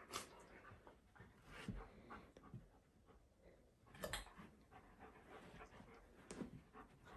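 Alaskan malamute panting faintly, with a few short scuffling noises as the dog rolls over and shifts on the rug.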